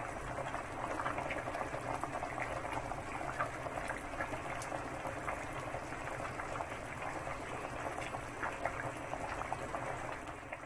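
Broth boiling hard in a metal stockpot: a steady bubbling with many small pops and crackles.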